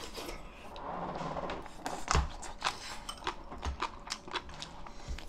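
Metal chopsticks and a spoon clicking and tapping against ceramic bowls and plates while eating, a rapid run of light clicks through the second half, with one heavier knock about two seconds in.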